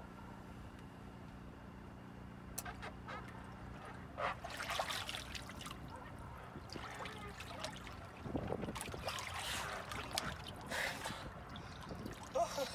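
Water splashing and sloshing in a cold-plunge tote in repeated bursts as a person flips into an underwater handstand and then surfaces, over a steady low hum.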